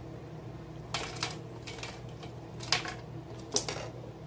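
A metal spoon or ladle clinking against a large metal cooking pot: a few sharp clinks, about a second in, just before three seconds and twice around three and a half seconds, over a steady low hum.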